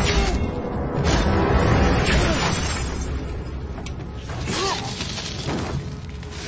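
Film battle soundtrack: a dramatic music score under a run of sharp weapon impacts and clashes, one of them a blade shattering against a White Walker's ice weapon.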